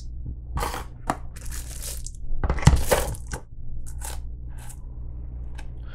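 Packaging of a mail-order box being opened and handled: an irregular run of crinkling, tearing and crunching noises, loudest about two and a half to three seconds in.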